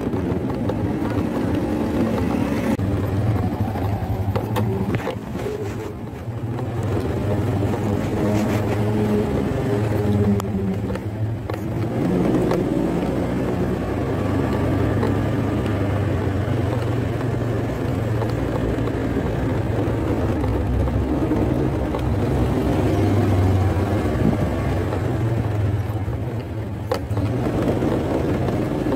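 Motorcycle engine running steadily while riding, with road and wind noise. The engine pitch shifts up and down about ten seconds in.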